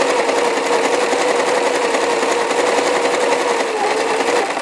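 Elgin Genius JX 4000 electric sewing machine running fast, stitching through a cotton fabric scrap: a steady rapid needle rhythm over the motor hum. It slows slightly just before stopping abruptly at the end.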